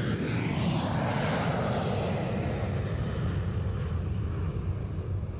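Embraer KC-390's twin IAE V2500 turbofan jet engines at takeoff power during a short takeoff run: a steady, loud rumble and roar, with a whine that falls in pitch over the first couple of seconds as the aircraft goes by.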